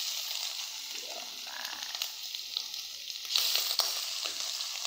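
Cubes of raw liver frying in hot oil just after going into the pan: a steady sizzle with fine crackles, growing louder about three seconds in.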